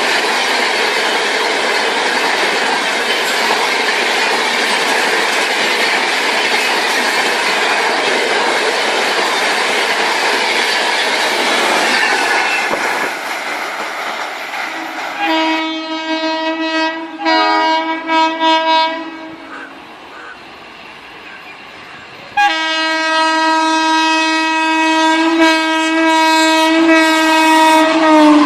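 Indian train running past with loud rumble and wheel noise on the track, fading after about twelve seconds. Then the train horn sounds in a few short blasts, a pause, and one long steady blast.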